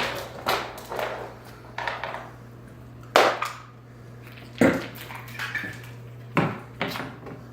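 A German shepherd puppy crunching and knocking an ice cube about, making about seven sharp, irregular clacks and crunches over a steady low hum.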